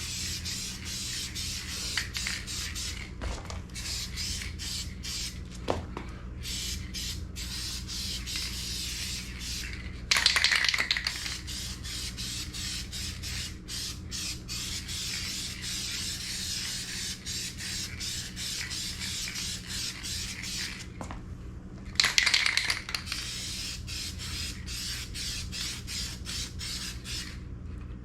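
Aerosol spray-paint can hissing in repeated passes, stopping and starting, as a coat of paint goes onto a car bumper. Two passes, about 10 and 22 seconds in, are louder than the rest.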